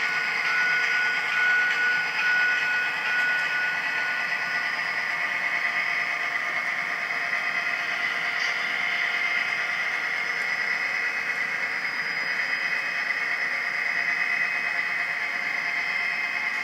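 HO-scale model train of cabooses rolling along layout track: a steady running noise with a thin whine that fades out about four seconds in.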